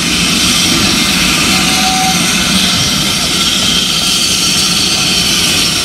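Manning Wardle L class saddle-tank steam locomotive hissing steam as it rolls past: a loud, steady, even hiss.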